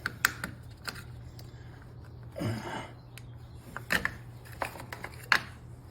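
Irregular metallic clicks and knocks of jump-starter clamps being handled and clipped onto a car battery's terminals, over a steady low hum.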